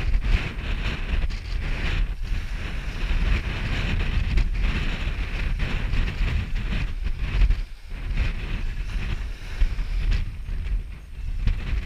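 Strong wind buffeting the microphone in gusts, over the steady wash of surf.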